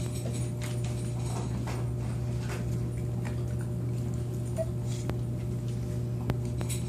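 Lagotto Romagnolo puppies playing and scuffling on a blanket: scattered faint clicks and one brief small puppy squeak a little past the middle, over a steady low hum.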